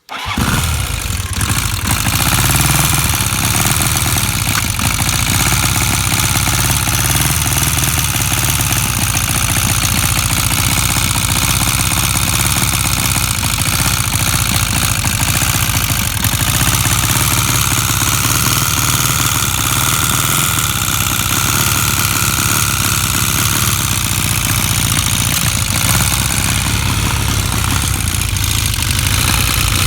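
Honda CB 400 motorcycle engine running steadily at an even speed. The owner asks whether its noise is an engine rattle ('cliquetis').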